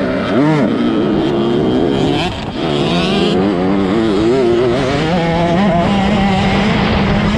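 Motocross bike engine at race pace, heard close from the rider's own bike. Its pitch rises and falls repeatedly as the throttle is worked through the turns, then settles to a steadier pitch for the last couple of seconds.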